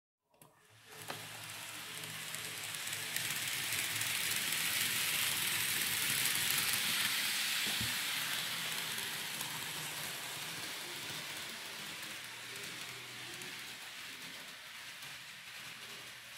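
KATO 189 series N-scale model train running on the layout's track: a steady hiss of wheels and motor that grows louder as the train comes near, loudest about six to seven seconds in, then slowly fades as it moves away.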